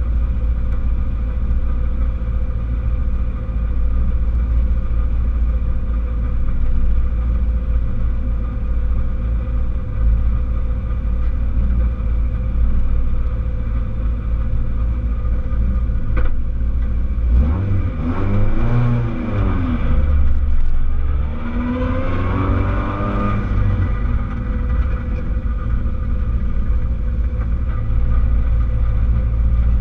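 Rally car engine idling, heard from inside the stripped cabin, with two blips of revs that rise and fall a few seconds apart, about two-thirds of the way through.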